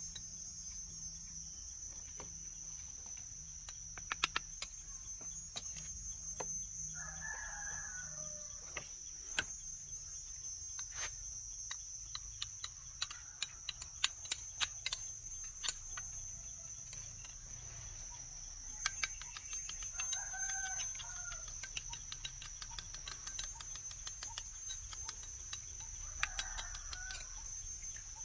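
Chickens calling four times over a steady high insect drone, with scattered light clicks of a metal spoon against a small bowl as a paste is stirred.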